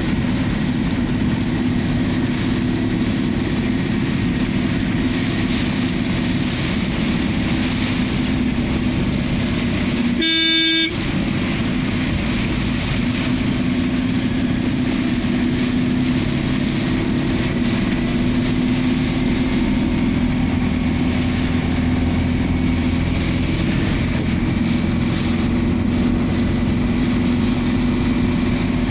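Vehicle engine running steadily while driving through heavy rain, heard from inside the cab, with the hiss of rain and tyres on the wet road. About ten seconds in, a vehicle horn sounds once, briefly.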